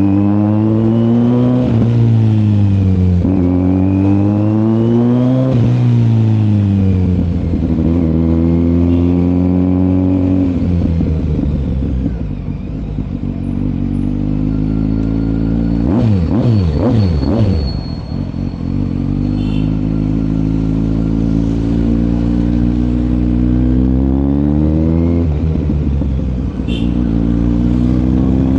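Kawasaki Z900 inline-four engine and exhaust under way: revs climb and drop through three quick gear changes near the start, settle into a steady cruise, fall away in several sharp downward sweeps a little past halfway, then cruise steadily again with one more climb and shift near the end. The rider feels the exhaust note is coming out a bit open and suspects an exhaust leak.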